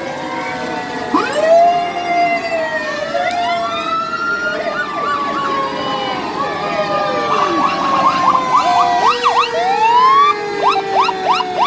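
Several fire apparatus sirens sounding at once, their wails overlapping as rising and falling glides with long, slowly falling tones underneath. About eight seconds in, a fast yelping siren comes in for a couple of seconds.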